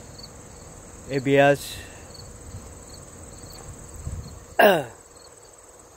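Steady high insect buzz with crickets chirping at a regular pace. Over it comes a man's voice: a short utterance about a second in, then a louder falling vocal sound a little after four and a half seconds.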